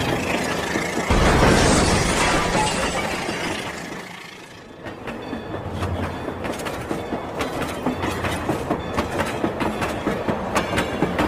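Rail King toy train running, a dense rattling train sound that swells about a second in, dips briefly around four seconds, then settles into regular clicking, a few clicks a second.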